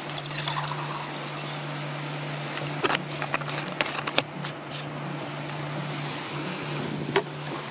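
Water poured from a plastic bottle into a metal camping pot at the start, filling it to boil for tea, followed by a few sharp clinks and knocks as the pot and bottle are handled.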